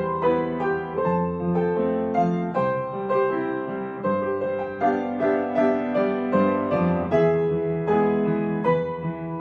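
Gentle piano music: a steady flow of single notes about two a second over held bass notes.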